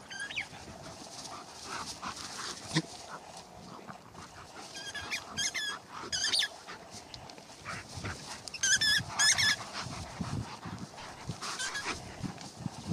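A husky-type dog and a German Shepherd play-fighting, with short, high-pitched yips and whines and rough low noises. The yips come in a few clusters and are loudest about nine seconds in.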